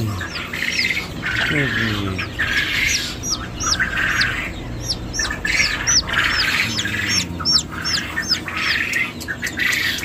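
A brood of young poultry chicks peeping: short, high, falling peeps, many a second, over a harsher squawking chorus of other birds.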